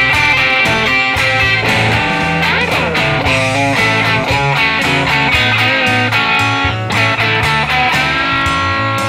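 Telecaster-style partscaster electric guitar playing over a chord progression, with notes that glide in pitch like string bends about two to three seconds in.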